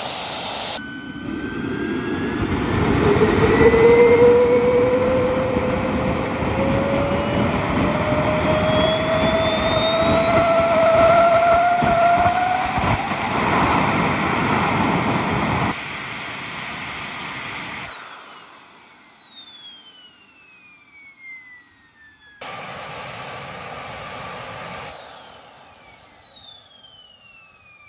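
Small jet engine running loud, its whine climbing steadily in pitch as it spools up. About halfway through the noise cuts off and the whine falls away as the engine winds down. A short second burst of noise comes later, followed by another falling whine near the end.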